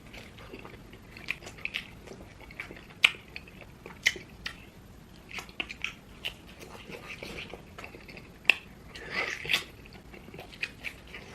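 Close-miked eating: chewing and biting with scattered sharp, wet mouth clicks and smacks, and a denser run of smacking about nine seconds in.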